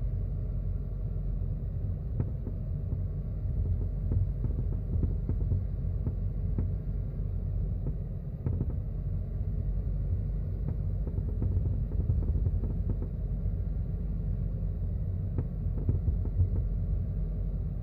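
Subaru WRX S4 driving slowly, heard inside the cabin at the passenger footwell: a steady low road rumble with irregular knocks and cracking clunks from around the left front of the car. This is the abnormal noise of an unidentified fault near the left front.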